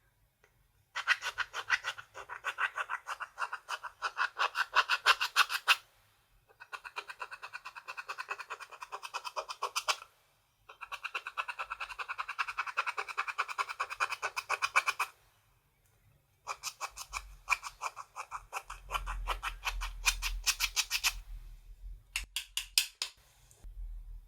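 Rapid, regular scraping and clicking strokes as eyeshadow is worked into clear slime, in four long runs of several seconds each separated by short pauses, then a shorter run near the end.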